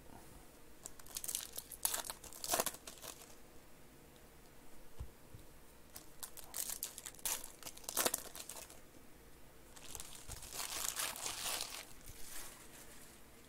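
Foil trading-card pack wrappers crinkling and tearing as packs are handled and ripped open, in three spells of rustling about two seconds each.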